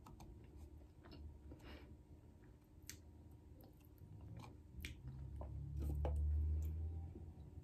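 Close-miked chewing of food, with wet mouth clicks and smacks scattered throughout. A low rumble swells up a little over two-thirds of the way in.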